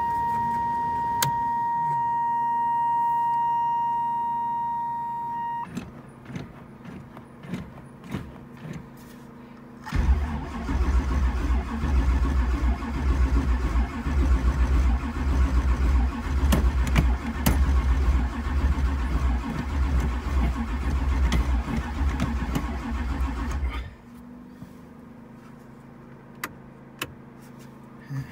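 A steady electronic warning tone sounds for the first few seconds. About ten seconds in, the starter cranks the 1985 Camaro Z28's dual-carb 383 stroker V8 for some fourteen seconds in a rhythmic chug without it catching, a cold start in deep frost that the owner takes for a flooded engine.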